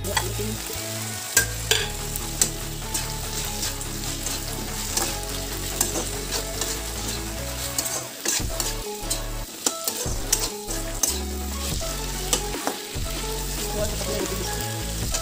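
Tomato-onion masala sizzling in a metal kadai while a perforated metal spatula stirs eggs into it, with frequent sharp clicks and scrapes of the spatula against the pan.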